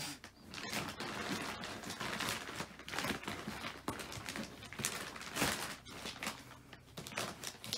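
Packaged mattress being handled and shifted: irregular rustling and crinkling of its wrapping, with scrapes and soft knocks.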